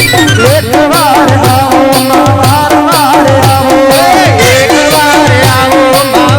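Instrumental garba music: a lead melody with sliding, bending notes over a steady, regular drum beat.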